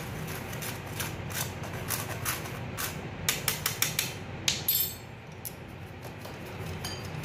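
Metal spoon knocking and scraping against a stainless-steel mesh sieve as semolina and gram flour are pushed through. The strongest knocks come in a run a little past the middle, followed by lighter, quicker ticking as the sieve is worked by hand.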